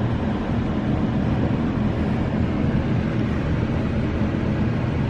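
Observation-tower elevator car riding up, a steady low rumble with a hiss.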